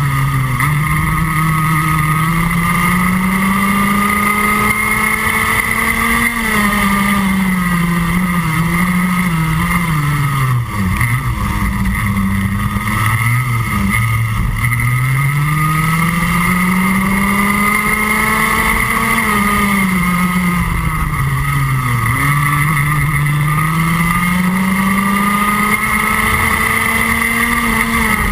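Rotax Max Junior 125cc two-stroke kart engine heard onboard at race pace. Its pitch climbs steadily as it accelerates down each straight and drops sharply each time the driver slows for a corner, about four times.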